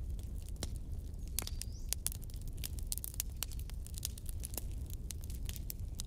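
Wood bonfire crackling, with irregular sharp pops and snaps over a low steady rumble. A brief faint high whistle rises about a second and a half in.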